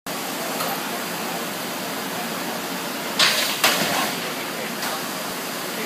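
Plastics machinery running with a steady noisy hiss. About three seconds in come two loud, short hissing bursts, less than half a second apart.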